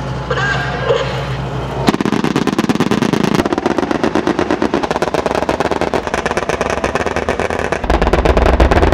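Twin Oerlikon KDA 35 mm cannons of Type 87 self-propelled anti-aircraft guns firing long, rapid bursts, starting about two seconds in after a steady low hum. The firing grows louder and deeper near the end.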